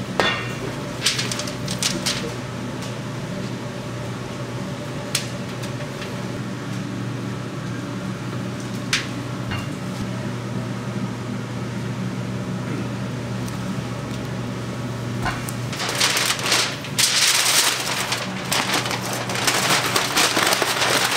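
Aluminum foil crinkling and crackling as it is folded by hand around a rack of sauced spare ribs, starting about three-quarters of the way in and loudest near the end. A steady low hum runs underneath, with a few light clicks earlier on.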